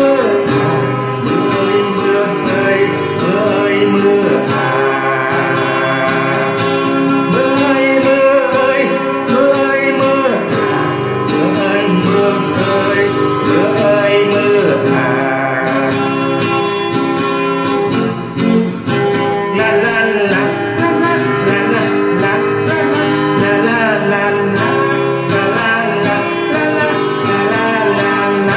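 Music led by an acoustic guitar, playing steadily.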